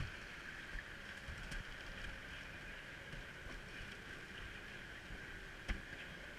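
Monte wicker toboggan's wooden runners sliding slowly down a wet asphalt lane: a steady scraping hiss, with a few sharp knocks, the loudest near the end.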